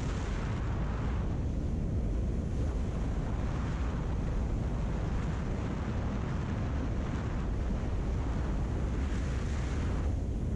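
Wind rushing over the microphone of a camera riding on a moving motorcycle: a steady, loud rumble and hiss with no distinct engine note, swelling briefly near the start and again near the end.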